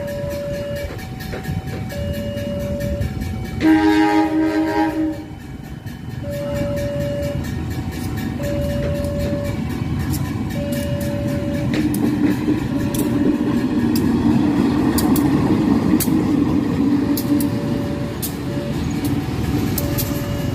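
Indonesian CC 201 diesel-electric locomotive (GE U18C) sounding its horn once for about a second and a half, about four seconds in, then its engine rumble growing louder as it passes, with wheel clicks over the rail joints. A two-tone level-crossing alarm alternates between two pitches about once a second throughout.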